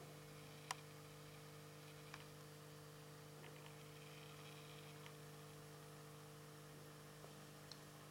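Near silence with a steady low electrical hum, broken by a few faint clicks, the sharpest one under a second in.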